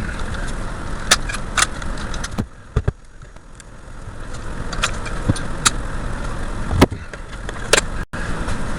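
Angle grinder cutting through a burnt starter-motor armature: a steady running noise with scattered sharp clicks. It drops away about two and a half seconds in, then builds back up over the next few seconds.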